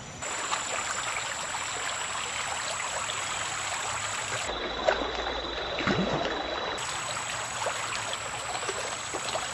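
Creek water running steadily, a continuous trickling rush.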